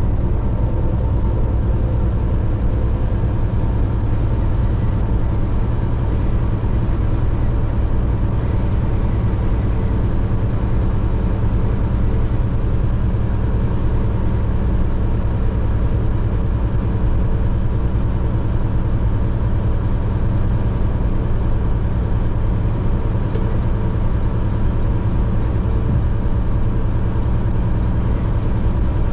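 Steady road and engine noise of a vehicle driving at highway speed, a constant low rumble with a faint even hum on top.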